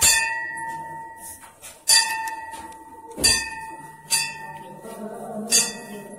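A temple bell struck about five times at uneven intervals of one to two seconds, each strike ringing on with a steady tone, over a faint murmur of voices.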